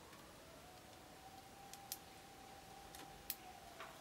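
A few sharp ticks of a Eurasian tree sparrow's beak pecking seed on a wooden bird table, over near silence. A faint steady tone runs in the background, fading away near the end.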